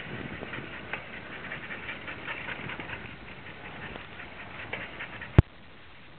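A rapid, irregular patter of dogs' paws and claws on the street as they run beside a mountain bike, with one sharp click near the end.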